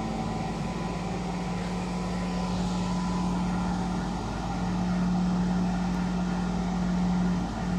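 Cruse synchronized-table planetary scanner running during a scan: a steady machine hum with a strong low tone, getting a little louder about halfway through.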